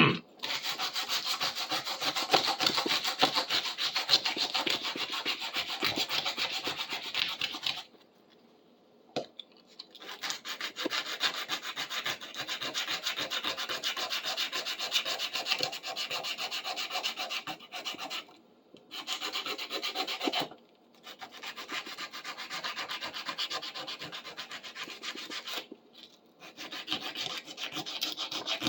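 Sandpaper scrubbed by hand over a rusty metal tool in quick back-and-forth strokes, stripping rust, with a few short pauses between bouts.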